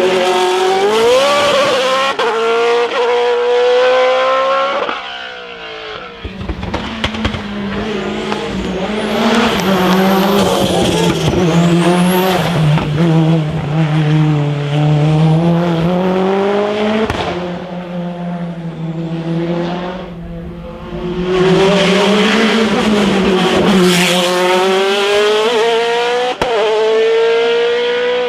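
Hillclimb race car engines accelerating hard, the pitch climbing and dropping back at each gearshift. There are several passes, with breaks about five seconds in and again around seventeen and twenty-one seconds.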